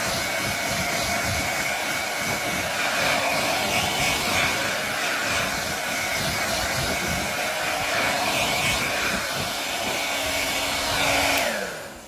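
Hair dryer blowing steadily, a rush of air with a high steady whine; near the end it winds down, falling in pitch and fading away.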